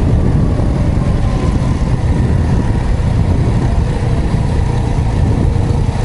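Honda Super Cub's single-cylinder four-stroke engine running steadily while riding, under a heavy, even low rumble.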